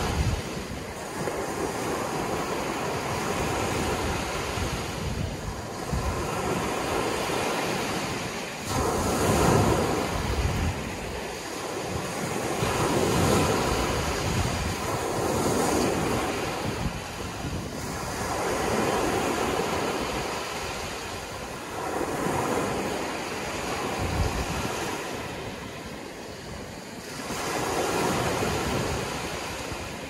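Small ocean waves breaking and washing up a beach of crushed shells and fine shingle, the surf hiss swelling and ebbing every three seconds or so.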